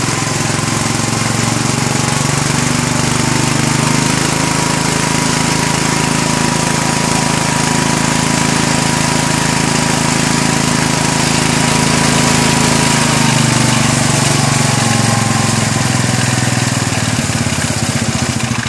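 1974 Cub Cadet 149's 14 hp Kohler K321A single-cylinder engine revved up from idle over the first few seconds, held at high speed, then let back down to idle about thirteen seconds in. A thin whine rises and falls with the engine speed.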